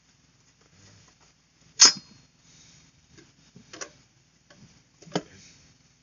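Sharp metallic clicks and clinks from handling a car power amplifier's vented sheet-metal cover and its screws while the amp is being opened up. There are three main clicks, the loudest about two seconds in, with a few softer ticks over a faint low hum.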